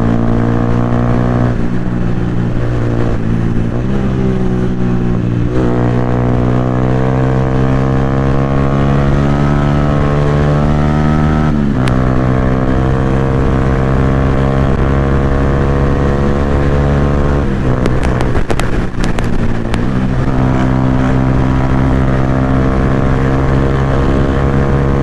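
Yamaha R15 V3 single-cylinder engine through a loud aftermarket Akrapovic exhaust, ridden hard: the note climbs steadily as it pulls through a gear, drops at an upshift about twelve seconds in, then holds steady with another brief break at a shift near the nineteen-second mark.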